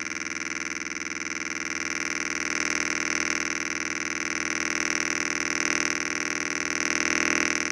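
Electronic buzz from a loudspeaker driven by a homemade transistor antenna circuit: a dense tone with many overtones and a fast flutter, growing steadily louder.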